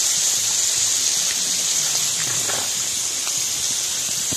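Water just added to a hot wok of stir-fried minced pork, sizzling and hissing steadily as it comes to the boil.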